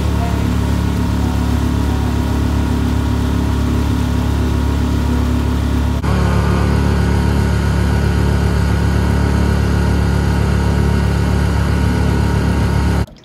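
Small Tohatsu tiller outboard motor running steadily at cruising speed, pushing a 12-foot aluminium boat along.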